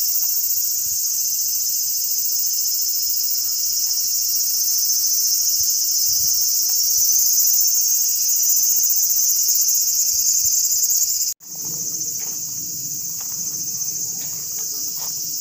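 Loud chorus of Japanese insects, a steady shrill drone. It cuts out for an instant about eleven seconds in and comes back a little softer.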